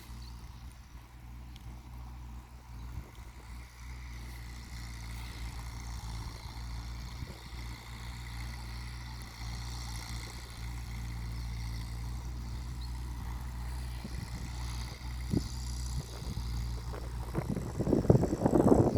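New Holland TT75 tractor's diesel engine running steadily under load while ploughing, a constant low drone. A louder rough, crackling burst of noise comes in near the end.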